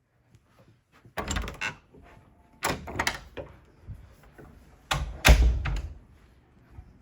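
Three bouts of knocking and thudding, about a second, two and a half seconds and five seconds in, the last the loudest.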